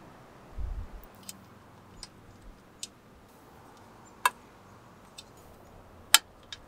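Small sharp clicks and ticks of a bike cable being fitted: a steel inner cable and its housing ferrule seating in a small bolt-on cable guide on the bike's metal top tube. The clicks come singly and a second or so apart, and the two loudest fall about four and six seconds in. A low handling thump comes just under a second in.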